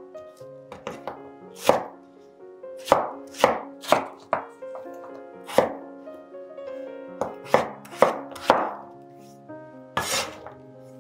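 Kitchen knife chopping a raw peeled potato into cubes on a bamboo cutting board: a dozen or so sharp, irregularly spaced knocks of the blade on the wood. Soft background music runs underneath.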